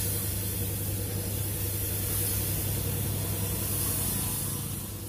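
Compressed-air paint spray gun spraying paint onto a car body panel: a steady hiss of air and atomised paint, over a steady low hum.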